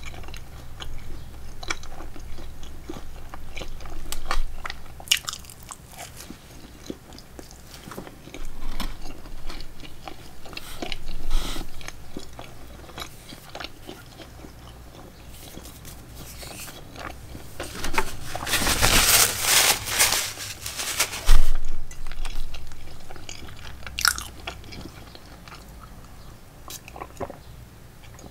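A person chewing and biting food close to the microphone, with scattered small mouth clicks. About two-thirds of the way through comes a longer, louder stretch of noise that ends in a sharp knock.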